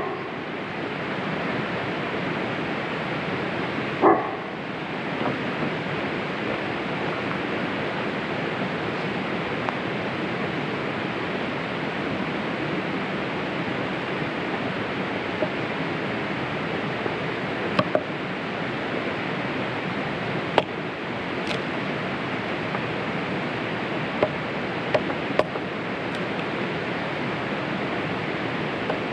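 Steady rushing noise of rain, with scattered sharp ticks and one short pitched vocal sound about four seconds in.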